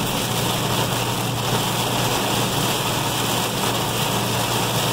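Heavy rain falling steadily on a moving truck's windshield and cab, heard from inside the cab, over the steady low hum of the truck's engine and road noise.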